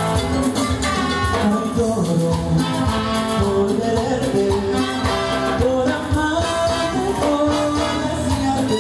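Live Latin dance band playing, with percussion driving the rhythm and singing over it.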